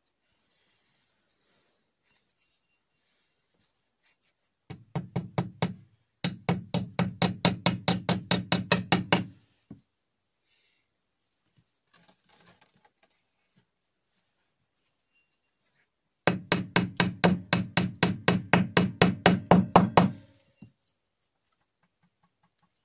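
Rapid hammering on a wooden beam: a few blows about five seconds in, then a quick even run of about six or seven blows a second for three seconds, a pause with faint scraping, and a second run of about four seconds.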